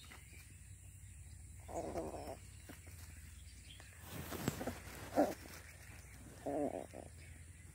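Miniature dachshund puppy digging in dirt and dry leaves, making three short vocal sounds about two, five and six and a half seconds in, with a spell of scratching just before the second.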